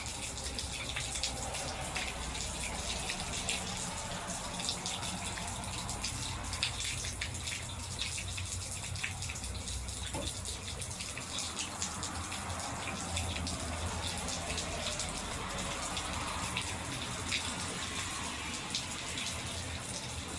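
Steady rain falling, with rainwater running and dripping close by: an even hiss scattered with many small drop ticks.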